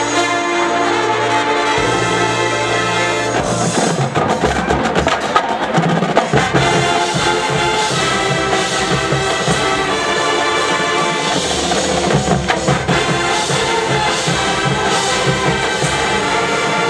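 College marching band playing: brass sustaining chords over drumline and front-ensemble percussion, with denser drum hits about four seconds in and again around twelve seconds.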